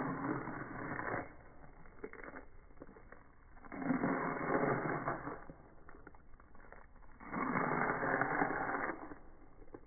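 A Boston terrier chewing cheese balls, with the audio slowed right down, so each crunch becomes a long, low, crackling burst. There are three bursts, at the start, about four seconds in and about seven seconds in.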